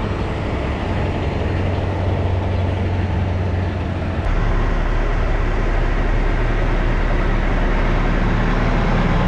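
Heavy dump truck's diesel engine running steadily on the move, a low drone with road noise. About four seconds in, the drone drops lower in pitch and gets slightly louder.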